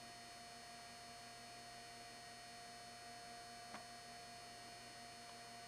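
Near silence: a faint, steady hum made of several held tones, with one faint click a little past halfway.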